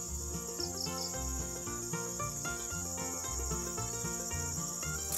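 Steady high-pitched insect chorus shrilling without a break, over soft background music.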